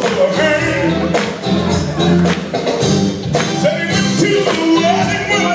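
Live gospel music: a male lead singer over a band and backing vocals, with a steady beat of about two strikes a second.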